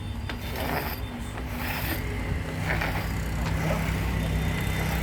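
Sawmill machinery running with a steady low hum that grows louder from about halfway through.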